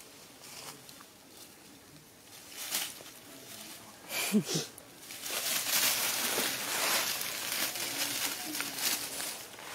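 Dry leaf litter rustling and crackling for several seconds as monkeys move and rummage through it, following a brief squeak about four seconds in.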